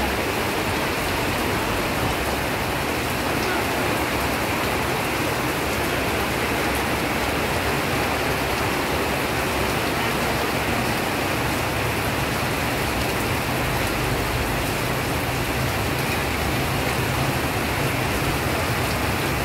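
Heavy rain falling, a steady even hiss of rain on surfaces.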